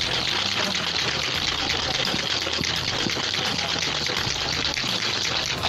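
Ice rattling rapidly inside a cocktail shaker as a cocktail is shaken hard, a dense, continuous clatter that stops abruptly near the end.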